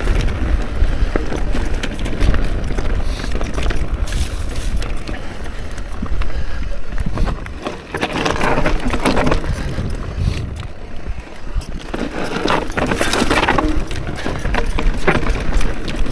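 Mondraker Crafty electric mountain bike being ridden over rough, rocky trail: tyres crunching over stone and the bike rattling, over a steady low rumble of wind on the microphone. The rattling grows louder about halfway through and again a little later.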